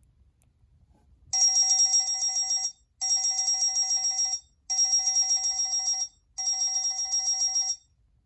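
Cingular 8525 (HTC Hermes) Pocket PC ringtone imitating a trilling telephone bell: four rapidly warbling rings of about a second and a half each, with short gaps between, starting about a second in.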